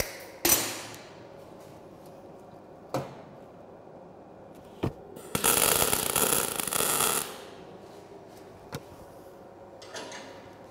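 MIG/MAG welding arc crackling for about two seconds in the middle, laying one tack weld on a corner of a small frame of steel angle (L-profile). A sharp burst comes about half a second in, and a few short knocks fall before and after the weld.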